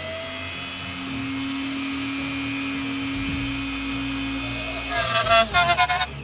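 Metal lathe running while a small cutting tool machines an aluminium part: a steady hum, then a harsh burst of rapid pulses from the cut about five seconds in.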